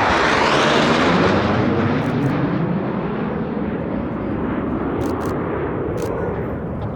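Panavia Tornado's twin turbofan jet engines, loud just after it passes, then slowly fading as the jet flies away.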